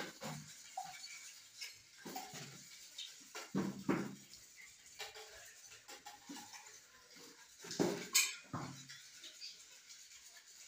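Metal whisk clinking and scraping against a stainless steel bowl as eggs are beaten, in irregular strokes with louder clusters about four and eight seconds in.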